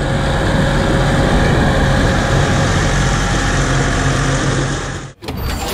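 Valtra A850 tractor's diesel engine running steadily. The sound cuts off abruptly about five seconds in.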